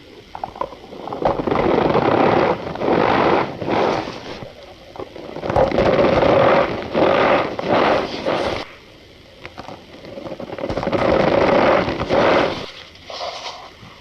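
Cornstarch powder squeezed and crushed by hand, squeaking and crunching in four drawn-out squeezes of one to three seconds each.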